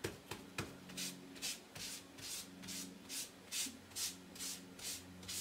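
Damp paper towel held in a clothespin rubbed over painter's tape and a smooth puzzle-piece surface, laying on a thin first coat of paint: even rubbing strokes, about two a second.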